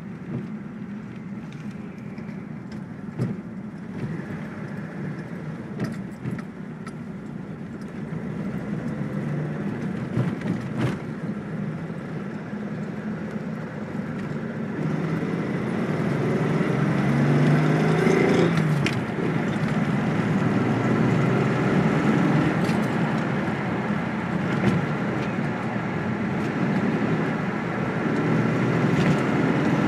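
Datsun 280Z's straight-six engine running, with sharp irregular clicks over it. About halfway through it gets louder and the engine note rises and falls.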